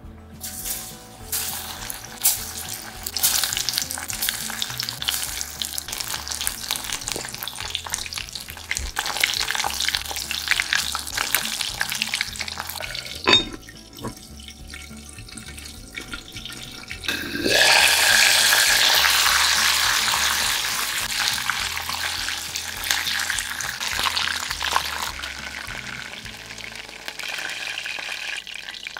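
Chicken karaage deep-frying in oil in a cast-iron pot, a dense crackling sizzle. About halfway through there is a sharp knock as the cast-iron lid is set on, and the sizzle is quieter for a few seconds. Then it is loud again and slowly dies down.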